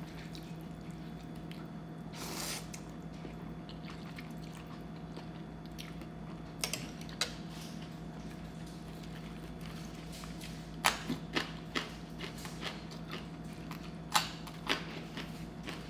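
Close-up eating sounds: wet chewing of rice noodles in curry, with scattered sharp crunchy clicks as raw vegetables are bitten, the loudest clusters in the second half, one as a raw flat bean is bitten near the end. A steady low hum runs underneath.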